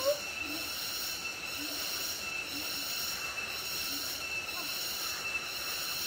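Forest insect chorus of cicadas: a steady, shrill, high whine that pulses about once a second. A short rising whistle sounds right at the start.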